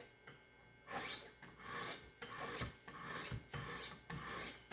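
A 400-grit stone on a Wicked Edge guided sharpener scraping along a knife's bevel. The strokes come one after another, a little faster than one a second.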